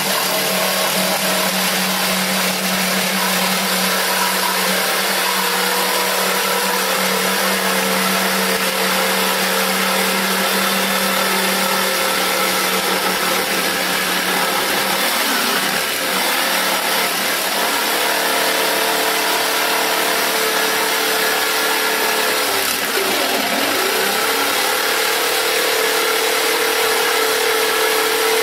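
Black+Decker electric jigsaw running under load, sawing a straight line through plywood with a wood-cutting blade. Its steady motor hum dips briefly in pitch twice, once around the middle and once later on.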